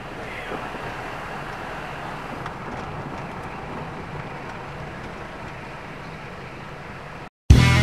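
Steady road and engine noise heard inside a Peugeot car's cabin while driving at low town speed. Near the end it cuts out abruptly and loud guitar-and-drum music starts.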